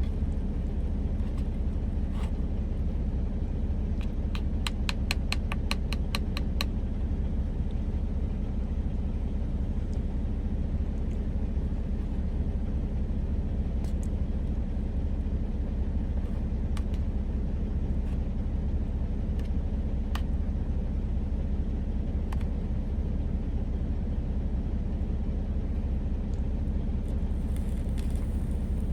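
Steady low rumble of a semi-truck's idling engine heard inside the cab. About four seconds in comes a quick run of about ten light clicks, roughly four a second, with a few single clicks later.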